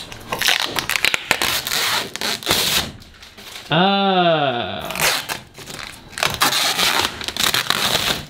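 Protective plastic film being peeled off the shed's window panes, a crackling, crinkling tear; the film is what made the clear windows look frosted. About four seconds in, a drawn-out vocal exclamation rises and falls in pitch over about a second.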